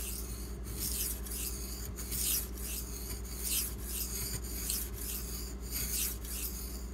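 The LC200N steel blade of a Spyderco Autonomy 2 is stroked back and forth across a soaked Imanishi 400-grit Latte water stone, with scratchy rasping strokes about two a second. The edge has been dulled on purpose and is being reset on the coarse stone. A steady low hum runs underneath.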